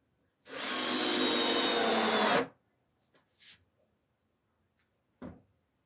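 Cordless drill driving a screw into wood, running steadily for about two seconds and then stopping. A few small handling sounds follow, a short hiss and a knock.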